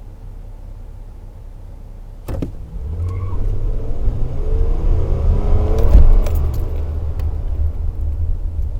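Toyota Tacoma pickup's engine revving up under hard acceleration, its note rising for about three seconds to a peak, then running on as a loud, steady rumble. A sharp click comes just before the engine picks up.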